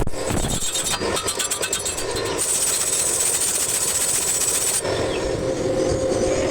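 Metalworking noise in three abrupt stretches: a rapid, dense crackle, then a steady high hiss, then a steady motor hum with a tone in it.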